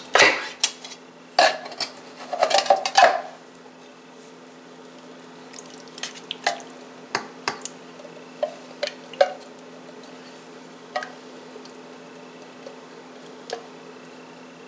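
Clanks and knocks of metal cans and kitchen utensils being handled, a cluster of loud knocks in the first few seconds, then scattered lighter taps, over a faint steady low hum.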